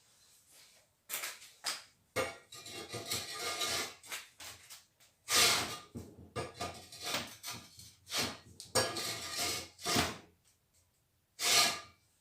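Irregular scraping, rubbing and clattering of hard parts being handled and worked by hand, in uneven strokes of about half a second to two seconds with short pauses between them.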